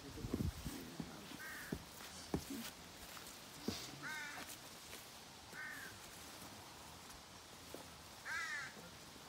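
A crow cawing: single short caws about every two seconds, four or so in all, with a few soft thumps in between.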